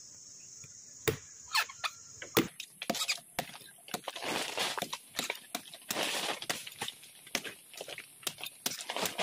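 Knife cutting into a sugar palm's male flower stalk to tap it for sap: a few separate cracks, then from about two seconds in a quick, irregular run of cracking and scraping cuts.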